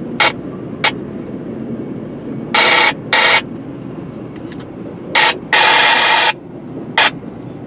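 Short bursts of sound from a locomotive cab's two-way radio, starting and cutting off abruptly several times, over a steady low rumble from the locomotive.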